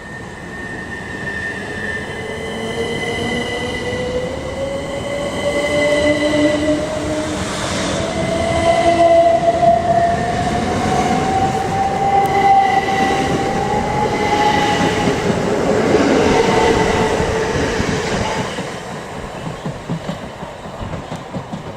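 Electric passenger train moving through a station, its traction motors whining with a pitch that rises steadily as it gathers speed, over wheel rumble and a high steady squeal. It grows loud through the middle and fades near the end.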